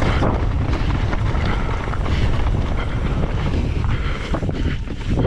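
Strong wind buffeting the microphone: a loud, continuous low rumble with a rushing hiss over it.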